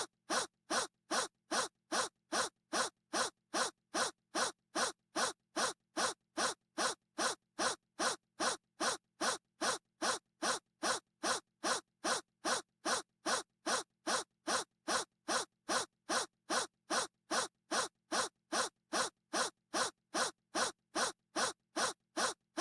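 A short, breathy gasp repeated over and over in a rigid loop, about two a second, each one alike and separated by dead silence.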